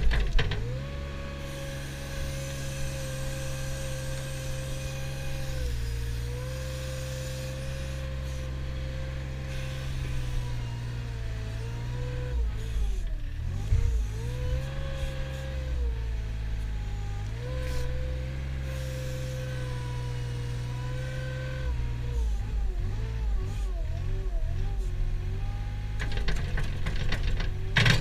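Mustang compact wheel loader's diesel engine and hydraulics running under load as the bucket lifts and pushes into grass, with a whining tone that wavers and dips several times. Rattling comes in near the end.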